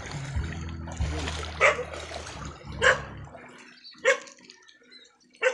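Four sharp splashes in shallow stream water, about a second and a quarter apart, over a low steady hum that stops about three and a half seconds in.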